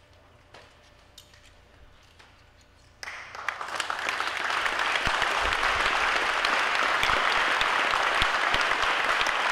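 Crowd applauding: the clapping starts suddenly about three seconds in, builds quickly and carries on steadily. Before it, only a few faint clicks and knocks.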